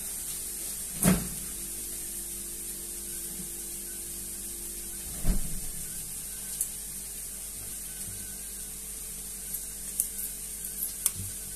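Food sizzling in a frying pan on a gas stove: a steady hiss over a low hum. A sharp knock of kitchenware comes about a second in and another around five seconds, with a few lighter clicks near the end.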